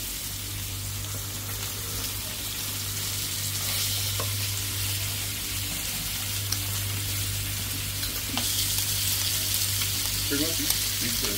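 Meat sizzling on the grill plate of a VEVOR electric grill and hot pot, a steady hiss that grows louder about eight and a half seconds in, over a steady low hum. A few light clicks sound during it.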